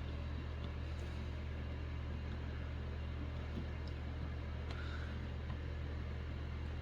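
Steady low electrical hum with a light hiss, with a couple of faint ticks around one second in and near five seconds.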